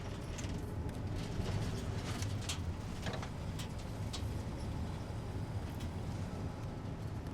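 City street ambience: a steady low traffic rumble, with a few sharp clicks in the first three seconds.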